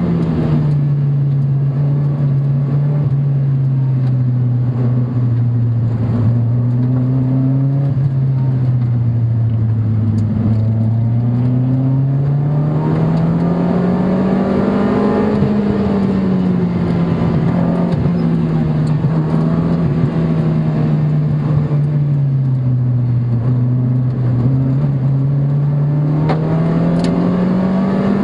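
Sports car engine heard from inside the car while lapping a race circuit. The pitch drops sharply about half a second in, then slowly sinks, climbs, sinks and climbs again as the car accelerates and eases off, over steady road and wind noise.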